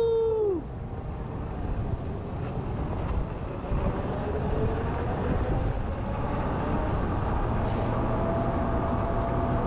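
Renegade mini electric ATV riding across a wet concrete parking deck: a steady low rumble of tyres and air, with a faint electric-motor whine that rises in pitch about halfway through and then holds steady. A brief held whine cuts off about half a second in.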